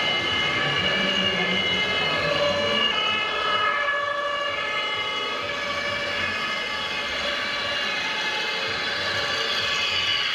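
Sirens from the sound units of 1:16-scale RC model fire trucks, several tones sounding at once and switching pitch every second or so.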